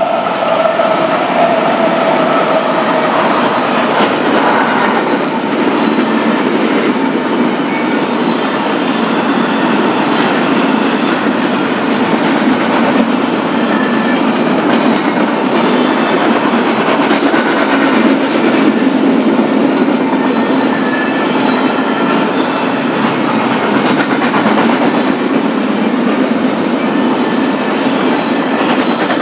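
BNSF intermodal freight train rolling past close by, its wheels clattering steadily over the rails, with a falling tone in the first few seconds.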